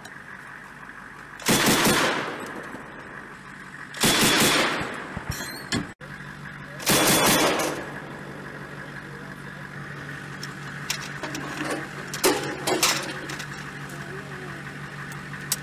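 Vehicle-mounted machine gun firing three short bursts a couple of seconds apart, then two fainter bursts later on, over the steady hum of an idling vehicle engine.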